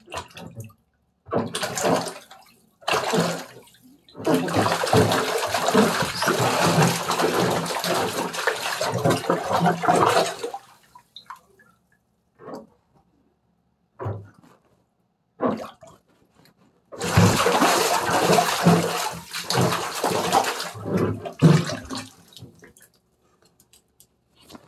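Bare feet splashing and sloshing through shallow water in a bathtub, in bursts with quiet gaps; the longest bursts run for several seconds.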